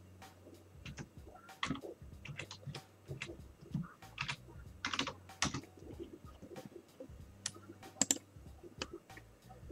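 Typing on a computer keyboard: irregular keystrokes and clicks.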